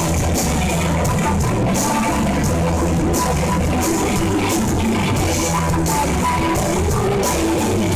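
Live rock band playing: electric guitars over a drum kit, with steady cymbal strokes.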